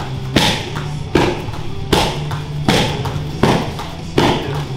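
Roundhouse kicks landing on Thai kick pads and a belly pad, about one sharp smack every 0.8 seconds, six in all.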